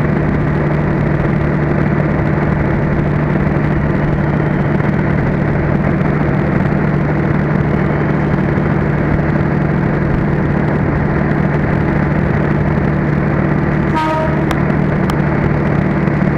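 Loud, steady mechanical drone with a low hum that does not change in level or pitch. About 14 seconds in, a short run of falling tones, followed by a few sharp clicks.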